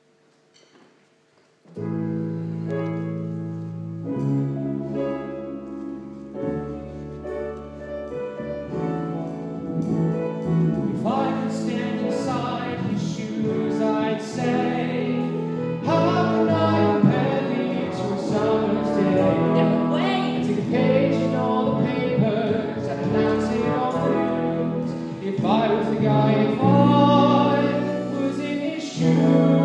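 A choir performing a song: sustained chords start about two seconds in and change every few seconds, and a solo singing voice comes in over them about eleven seconds in.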